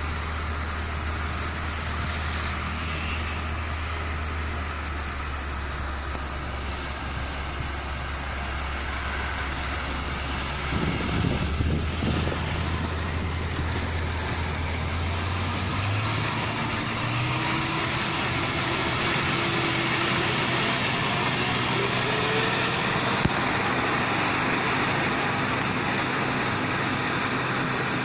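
Tracked New Holland combine harvester's engine running with a steady low drone as the machine travels along the road, loudest as it passes about eleven seconds in. After about sixteen seconds the engine note changes and a slowly rising tone joins it, as a vehicle approaches.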